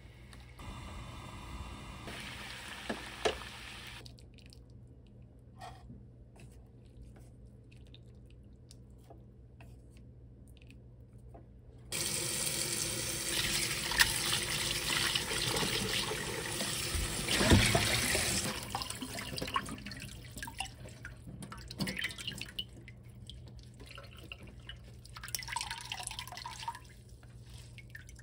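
Water in a pot of blanching shepherd's purse, with one sharp knock about three seconds in. About twelve seconds in, a kitchen tap runs loudly over the greens in a metal strainer in the sink for about six seconds. Irregular splashes and drips follow as the rinsed greens are handled and squeezed out by hand.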